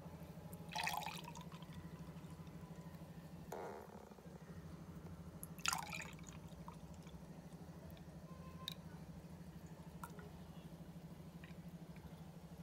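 Fresh juice being poured into glasses, a faint trickling splash, with a few short clinks about a second in and again near the middle, over a steady low hum.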